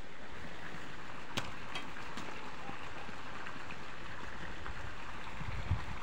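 Steady rushing noise like running water, with a single sharp click about a second and a half in and low rumbles near the end.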